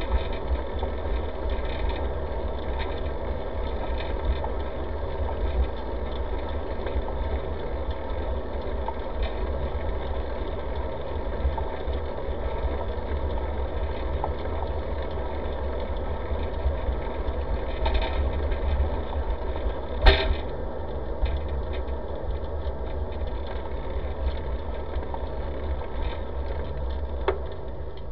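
Bicycle ride on a paved path heard through a bike-mounted camera: a steady low rumble with rattling from the ride. There is one sharp click about twenty seconds in.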